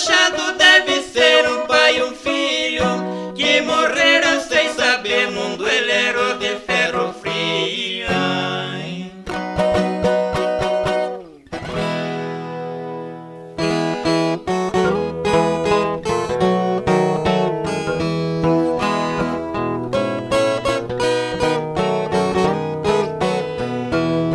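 Viola caipira and acoustic guitar playing an instrumental passage of a moda de viola. About eleven seconds in, the tune ends on a ringing chord, and a couple of seconds later a new tune starts with plucked strings over a bass line.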